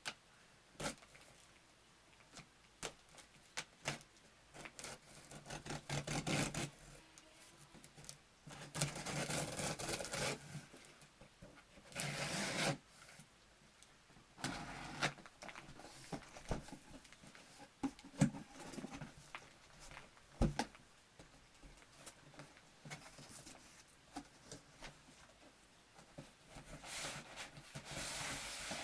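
A cardboard box and its packing being opened and handled: bouts of rubbing and scraping a second or two long, with scattered clicks and taps between them.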